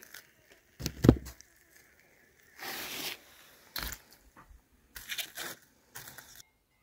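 Large knife carving through the crisp, crusty skin of a piece of roast meat on a wooden board, in a series of crunches and scrapes, with a heavier knock about a second in.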